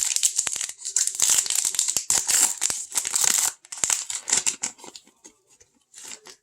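Foil wrapper of a trading-card pack crinkling and tearing as it is opened, dense for about three and a half seconds, then thinning to scattered crackles.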